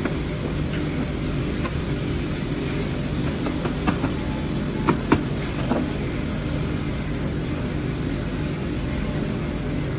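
Steady low machine drone, with a short run of sharp wooden knocks near the middle, the loudest about five seconds in, as battens are placed and tapped onto a board.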